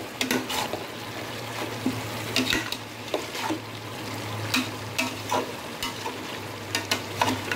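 Perforated steel spoon scraping and clicking irregularly against a metal pot while stirring chicken and potatoes frying in thick masala, with a soft sizzle underneath and a steady low hum. The pan is on low to medium heat at the kosha stage, where the meat is cooked down until the oil separates.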